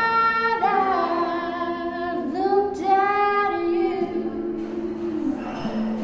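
A woman singing a slow melody in long held notes, over soft sustained accompaniment.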